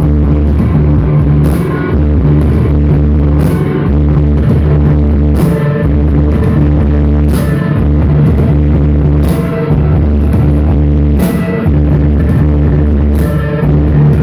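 Rock band playing live and loud without singing: electric guitar and bass over a drum kit, with a cymbal hit about once a second. The recording is heavy in the low end and rough in quality.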